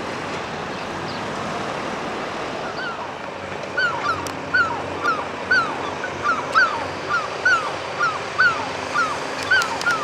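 A gull calling a quick series of short yelping notes, about two a second, starting about three seconds in, over a steady rushing background noise.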